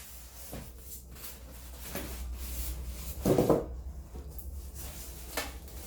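Handling noise from a PC case being moved and turned: faint rubbing with a few light clicks and one stronger knock-like rustle about three seconds in, over a low steady hum.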